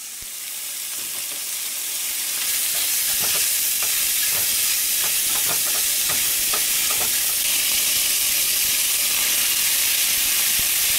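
Chopped bacon sizzling as it fries in a skillet, the sizzle swelling over the first couple of seconds and then holding steady. A utensil clicks and scrapes against the pan as the pieces are stirred, mostly in the middle of the stretch.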